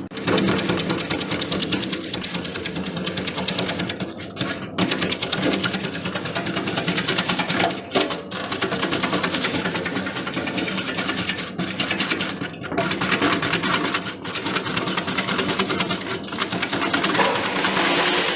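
Motor-driven palm sugar shredding machine running with a fast, even mechanical chatter whose loudness rises and falls. Near the end it settles into a steadier hiss.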